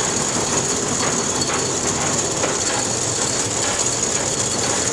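Belt-driven line shafts, pulleys and cup elevators of an old grain mill running during a buckwheat grind: a steady, loud mechanical clatter and rattle with light, regular knocks and a constant high whine.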